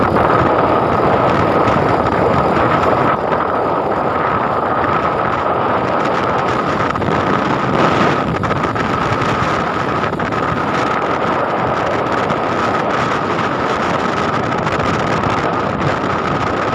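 Moving motorcycle: wind rushing over the microphone and the engine running, with a steady high whine.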